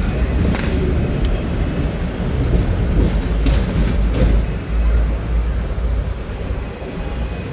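Hong Kong double-deck electric tram under way, heard on board: a steady low rumble from the running gear on the rails, with a few sharp clicks in the first half.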